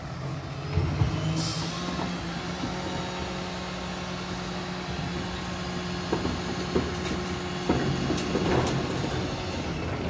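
2005 Freightliner garbage truck's diesel engine running steadily some way down the street. A short hiss comes about a second and a half in, and a few faint knocks follow later on.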